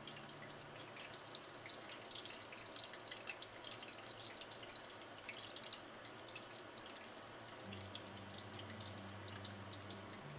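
Cracker cones deep-frying in a pot of hot oil: a faint, steady fine crackle and bubbling of the oil, over a low hum.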